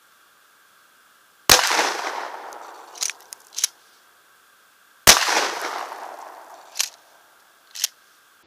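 Two shots from a Remington 870 12-gauge pump shotgun firing 00 buckshot, about three and a half seconds apart, each trailing off in a long echo. Between and after the shots come two pairs of short sharp clacks, typical of the pump action being racked.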